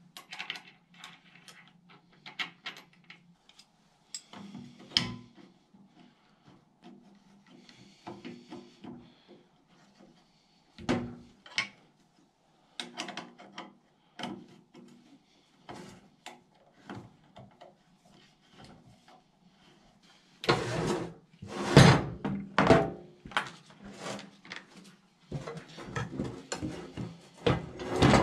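Scattered clicks, knocks and rubbing of metal winch parts and hand tools handled on a workbench during assembly of a chainsaw winch, with a louder, denser run of thumps and clatter from about twenty seconds in.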